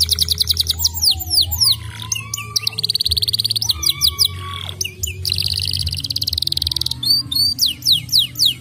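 Domestic canary singing: fast trills of repeated downward-sweeping high notes, broken by a sustained buzzy roll around the middle and a few lower slurred whistles.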